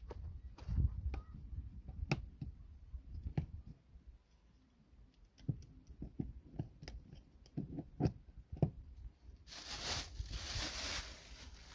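Scattered clicks and knocks of a blue mains plug being handled and pushed into a motorhome's outside hook-up socket. Near the end a dense, crinkling rustle of a plastic bag wrapped around a small generator takes over.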